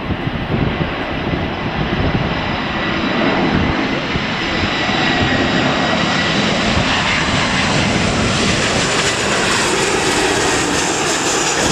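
Engines of an easyJet Airbus jet airliner on final approach, growing louder as it comes closer and passes, with a steady high whine. Underneath is the irregular low buffeting of strong wind and rain hitting an umbrella over the microphone.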